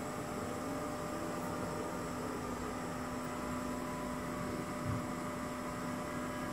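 Zeiss Contura G2 coordinate measuring machine running: a steady hum with several steady tones over a hiss, and a brief low thump about five seconds in.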